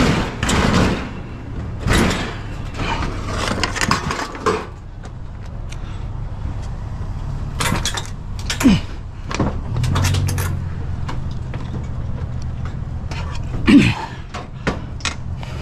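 Clunks, knocks and scrapes of a metal GE electric range being shifted and lifted, then a man's loud grunt of effort near the end.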